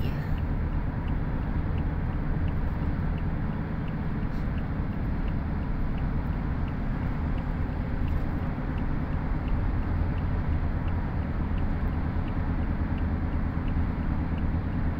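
Steady road noise inside a moving car: a low rumble of tyres and engine with some wind, unchanging while the car cruises.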